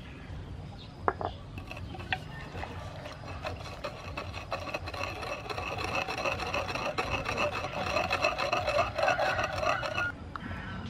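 Wooden pestle grinding and rubbing around the inside of a wooden mortar, working a wet paste of pounded chili, garlic, sugar and fish sauce into a dipping sauce. It begins with a single knock about a second in, the rubbing grows louder and stops abruptly near the end.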